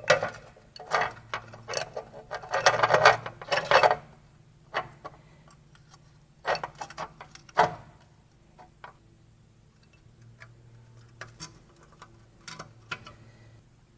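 Metal brake parts clinking and knocking as they are handled: a quick run of clicks and clanks in the first few seconds, then scattered single clinks.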